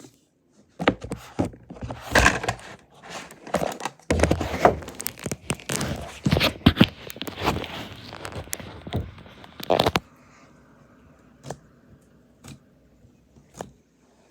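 Close handling noises from a slime kit: a run of scraping, crinkling and sticky clicking that stops about ten seconds in, followed by a few faint clicks.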